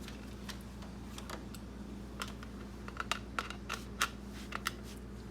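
Irregular light plastic clicks and taps, most of them in the second half, from a toy train controller's battery compartment cover being worked off by hand. A steady low hum sits underneath.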